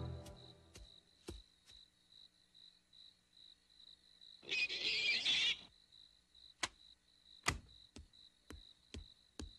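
Cartoon night-scene sound effects: crickets chirping in a steady, even pulse, with footsteps. About four and a half seconds in, a doorbell buzzer sounds for about a second, followed by more footsteps, the loudest about seven and a half seconds in.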